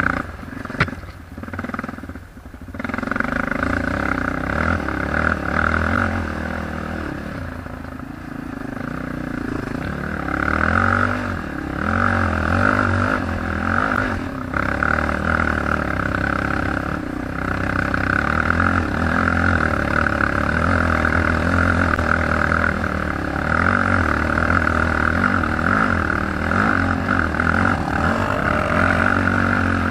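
ATV engine running steadily, with a brief drop in level about two seconds in.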